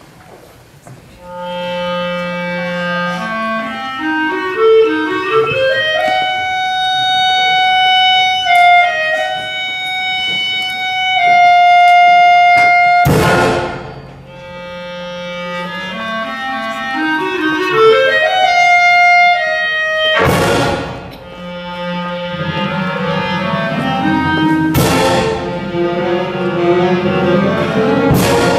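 Concert wind band of clarinets, saxophones and brass starting to play about a second in, with rising stepwise runs under sustained chords. Four loud percussion crashes ring out over the music, the first about halfway through.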